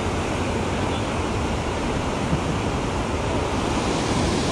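Steady rushing wind noise buffeting the camera microphone on a moving snowmobile.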